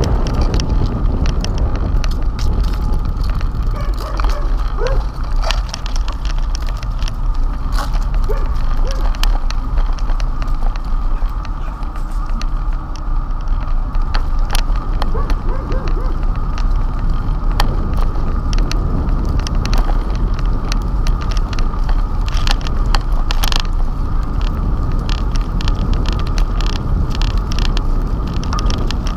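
Bicycle riding over rough asphalt, heard from a handlebar-mounted camera: a steady rumble of wind and road vibration with scattered clicks and rattles from the bike.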